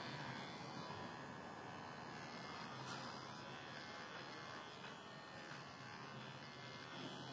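Cordless electric beard trimmer running with a steady buzz as it is drawn over beard hair on the cheek.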